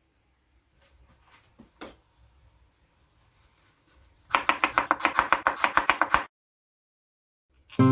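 Kitchen knife slicing a carrot thinly on a wooden cutting board: a fast, even run of chopping taps, about nine a second, lasting about two seconds midway, after a few faint knocks.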